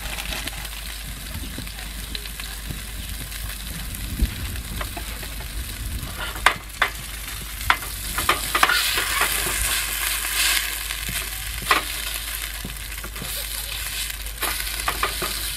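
A burger patty sizzling in a frying pan, a steady hiss. Several sharp clicks of a utensil on the pan come about halfway through and again near the end.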